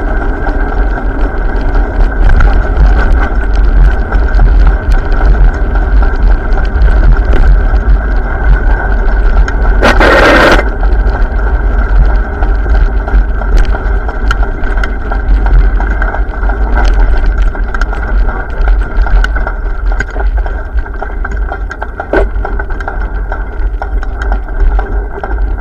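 Wind buffeting the microphone during a ride, a heavy steady rumble with road and traffic noise under it. A short loud rush comes about ten seconds in.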